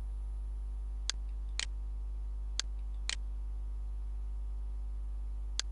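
Computer mouse clicks: five short, sharp clicks, two pairs half a second apart and then a fifth near the end, over a steady low electrical hum.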